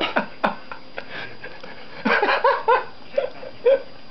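Stifled, high-pitched giggling in short bursts, with a quick run of giggles about two seconds in.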